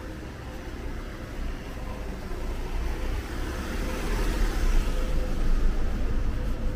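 A white panel van driving past at close range: its engine and tyres grow louder to a peak about four seconds in, then fade.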